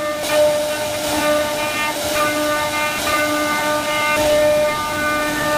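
CNC router spindle running with a steady high-pitched whine while its bit cuts a relief pattern into a wooden door panel; the higher tones shift every second or so as the bit moves through the cut, over a light hiss of cutting.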